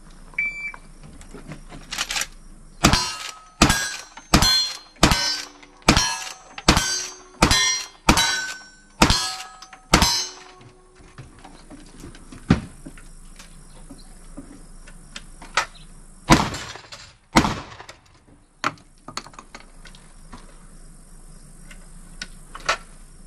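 Cowboy action gunfire at steel targets: a string of about a dozen rapid shots, roughly 0.7 s apart, each followed by the brief ring of struck steel. Then slower, scattered shots and clanks, with two louder blasts about a second apart near the middle.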